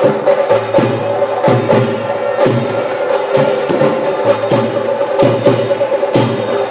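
Traditional temple procession music played live: drums and other percussion struck in a loose, uneven beat over a steady held tone.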